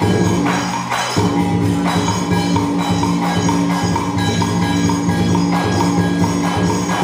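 Traditional Vietnamese water-puppet theatre music: percussion striking a steady beat about twice a second over sustained low instrumental tones.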